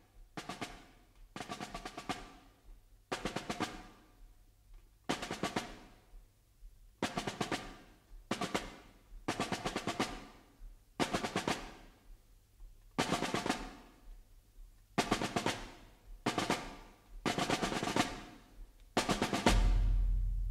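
Music opening on a snare drum: short, rapid rolls repeated about once a second, with a loud low part coming in near the end.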